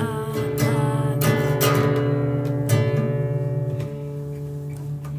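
Acoustic guitar strummed, with chords ringing on between a handful of strokes.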